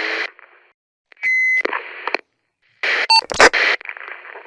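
Walkie-talkie static cutting off, then about a second in a short electronic beep followed by a burst of static. Near the three-second mark another burst of static with a brief beep and a sharp click, the static trailing off at the end.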